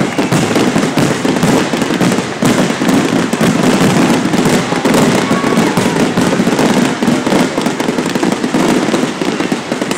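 Fireworks display going off in a dense barrage: many shells bursting and crackling in quick succession, one bang running into the next without a break.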